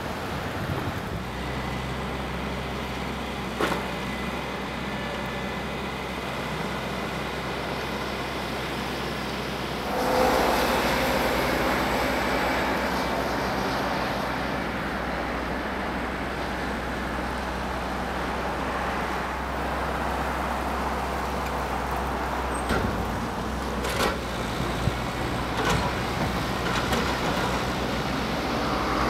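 Diesel engines of heavy machinery, an excavator and a skid-steer loader, running steadily with a few sharp knocks. The engine noise gets louder about ten seconds in.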